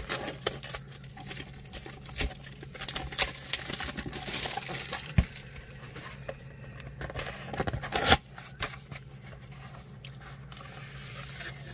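Clear plastic shrink wrap crinkling and tearing as it is peeled off a cardboard trading-card box, then the box's cardboard top flap being worked open, with a few sharp clicks along the way.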